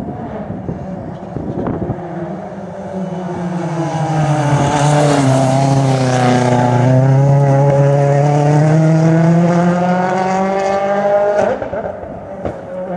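Ford Fiesta RS WRC rally car's turbocharged four-cylinder engine approaching and passing at speed. The revs drop into the corner and then climb as it accelerates away, and the sound falls away suddenly near the end.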